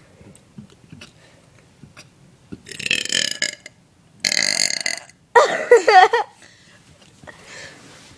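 A person burping loudly three times, about three, four and a half and five and a half seconds in; the last burp is the loudest, with a wavering pitch.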